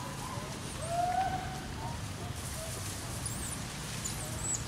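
Outdoor woodland ambience: a short call that rises and then holds its pitch about a second in, several brief high bird chirps in the second half, and a steady low hum underneath.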